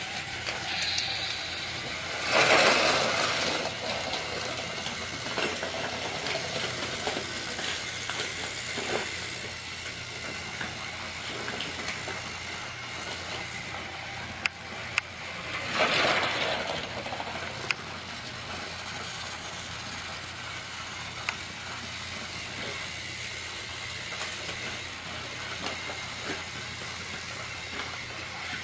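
Toy train running steadily on its track, with two brief loud hissing bursts, one a couple of seconds in and one about halfway, and a few sharp clicks between them.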